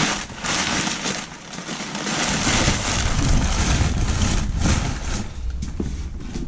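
Crumpled kraft packing paper crinkling and rustling as it is pulled out of a cardboard shipping box, with a deeper rumble joining about two seconds in.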